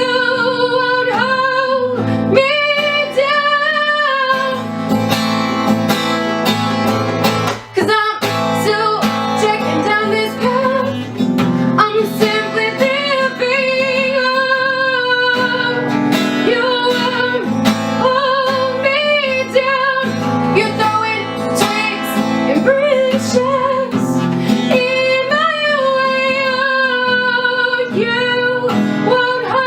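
A woman singing over a strummed acoustic guitar, her voice held on long, wavering notes, with a brief break about eight seconds in.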